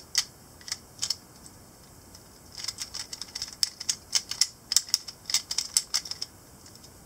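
Plastic stickerless Pyraminx being turned by hand, its pieces clicking as the layers and tips snap round. There are a few clicks at first, a short pause, then a fast run of clicks for about three and a half seconds.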